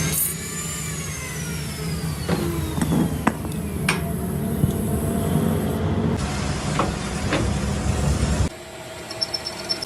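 Machine-shop motor noise, likely a metal lathe: a whine that rises, then slowly falls in pitch over a few seconds like a motor coasting down, over a steady low hum. A few sharp metal knocks come through, and the noise cuts off abruptly near the end.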